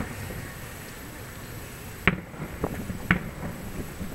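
Two fireworks shell bursts heard across the water as sharp bangs about a second apart, a little past halfway through, over a low background hum.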